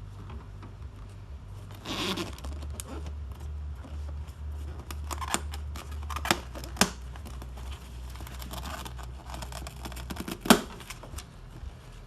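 Hand work on a truck's center console: scattered sharp clicks and knocks of plastic parts and tools being handled, with a burst of rustling about two seconds in and the loudest click about ten seconds in. A low steady hum runs underneath.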